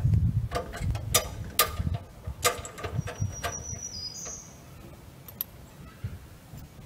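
Sharp metal clicks and clinks of hand work on a compact tractor's mower lift hardware, several in the first three seconds, with a short high whistle that steps in pitch near the middle.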